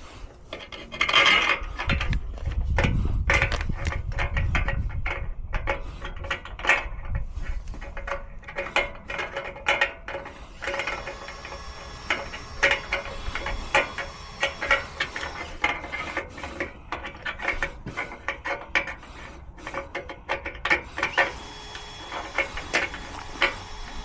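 Tool work on timber gate hardware, likely while fitting a hinge: rubbing and scraping on wood with many short clicks and knocks. A steady hum comes in about halfway and stops a few seconds before the end.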